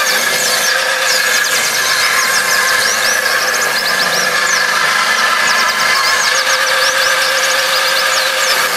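Homemade table saw, its blade driven by a salvaged water-pump electric motor, ripping a wooden board: a steady loud whine from the motor and spinning blade, with rapid high squeaks running through it.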